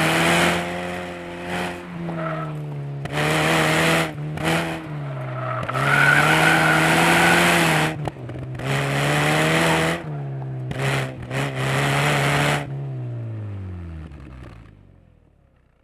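Convertible sports car's engine revving up and dropping back repeatedly under hard driving, with tires squealing in a corner and rushes of wind noise. Near the end the engine winds down steadily as the car slows, and the sound fades out.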